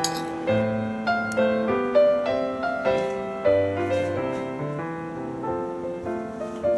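Background piano music: a gentle melody of single notes over low bass notes, each note struck and left to fade.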